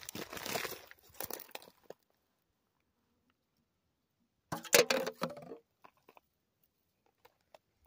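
Footsteps crunching through dry grass and loose rocky ground for the first couple of seconds, then quiet, then a short, louder burst of crunching and rustling about four and a half seconds in.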